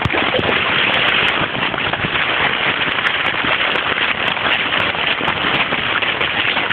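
Rain falling close to a phone's microphone: a dense, steady patter of drops.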